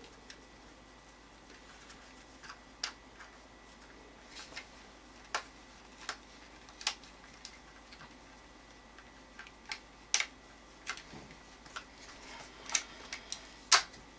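Small metal parts and hand tools being handled while fitting a pin and screws into a GSG-5 lower assembly: scattered light clicks and taps at irregular intervals, with a couple of sharper clicks about ten seconds in and near the end.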